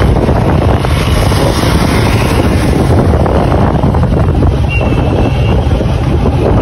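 Loud, steady rush of wind on the microphone of a motorcycle moving at speed, with a deep rumble underneath.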